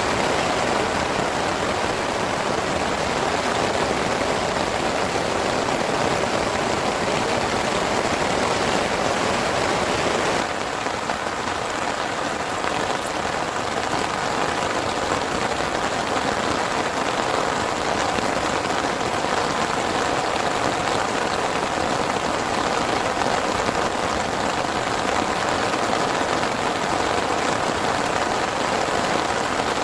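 Heavy rain falling steadily as a dense hiss of drops. About ten seconds in the sound changes abruptly, becoming a little quieter and lighter.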